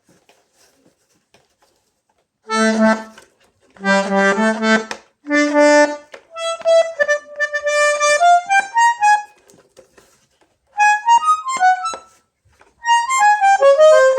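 Alfred Arnold 144-tone bandoneon being played: after about two and a half seconds of quiet, three short sustained chords, then quick runs of single notes with brief pauses between phrases.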